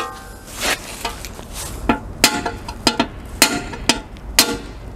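Hammer blows on a punch driving the remains of a blind (pop) rivet out of a truck's rear lamp mounting bracket: about seven sharp metallic strikes, each with a short ring, irregularly spaced.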